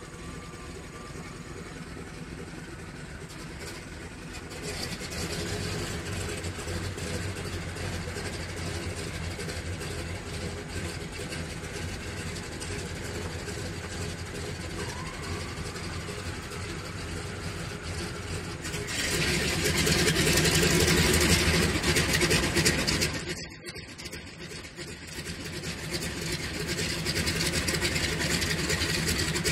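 Ford Tri-Motor's radial engines running on the ground, getting louder about four seconds in. About nineteen seconds in, the third engine catches and the combined sound jumps much louder and fuller. A few seconds later the level drops briefly as the recording level is pulled down, then comes back up.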